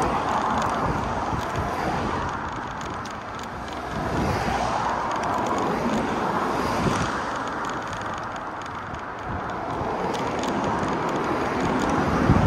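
Outdoor street ambience: traffic noise that swells and fades a few times as vehicles pass, with wind buffeting the microphone.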